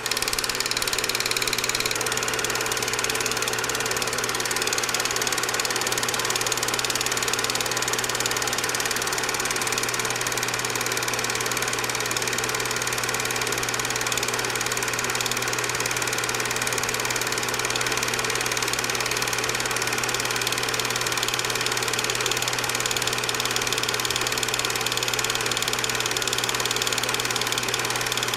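Steady running noise of a film projector: an even mechanical whirr over a constant low hum. It stays unchanged through the picture's cuts.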